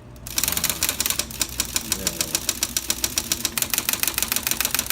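1955 IBM Model 11C electric typewriter clattering in a fast, even run of sharp clicks, several a second, starting about a quarter second in. The machine is in as-found condition with many functions not working.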